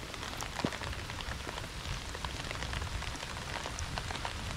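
Heavy rain falling steadily, a dense patter of drops with many separate small hits.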